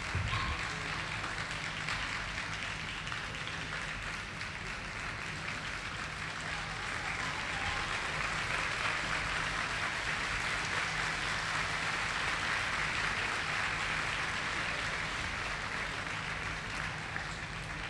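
Crowd applauding steadily, swelling about halfway through and easing off near the end.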